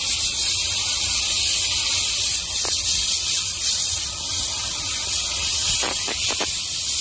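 Steam cleaner wand spraying steam against a caravan's side wall: a steady, continuous hiss.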